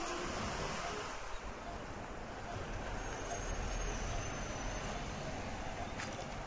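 Steady city background noise: an even wash of sound with a low rumble underneath and no distinct events.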